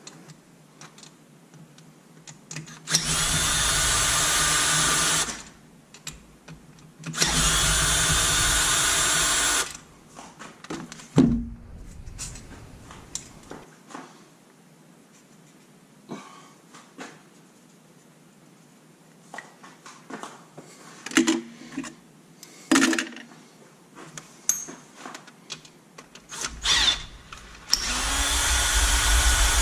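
Cordless drill spinning a socket on an extension to run bolts out of a Yamaha YXZ1000 transmission case, in three runs of two to three seconds each. Clinks and knocks of metal parts and tools come between the runs.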